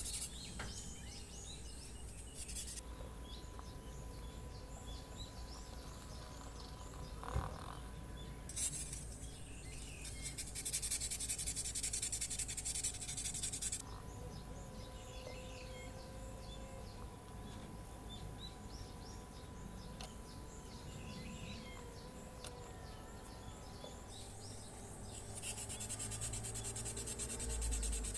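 Sandpaper rubbing over cured red urushi lacquer in several spells of steady hiss lasting a few seconds each, the longest about a third of the way through and another near the end. Small high chirps sound in the background between the spells.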